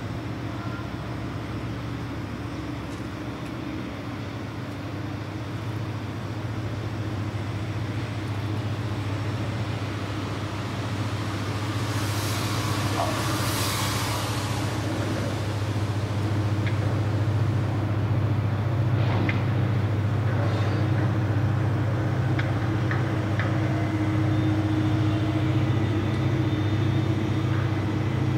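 Diesel machinery of a grab-crane gravel carrier unloading, with a wheel loader working on the quay: a steady low engine drone that grows louder in the second half, with a brief rushing noise about halfway through.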